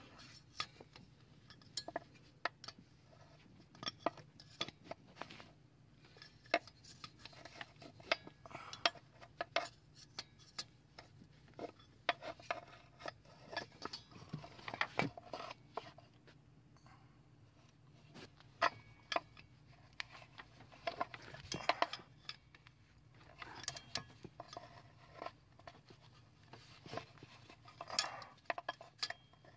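A 19mm wrench working the coolant temperature sensor, turned little by little, with irregular metallic clicks and clinks of the tool against the sensor and engine parts.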